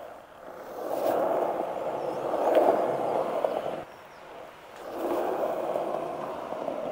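Skateboard wheels rolling over concrete as a skater pushes along, the rolling swelling up, dropping away just before the middle, then returning, with a couple of light taps during the first stretch.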